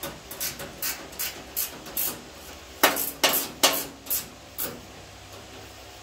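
A series of sharp metal clicks and knocks from hand tools working at a car's front fender while it is being bolted on, about three a second at first, then louder and closer together about three seconds in, stopping near the end.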